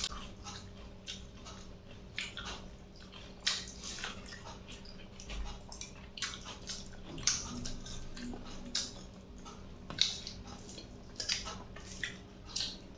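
Close-up eating sounds: wet chewing and lip smacks, with fingers squishing rice and chicken curry on a steel plate, heard as many short irregular smacks and clicks.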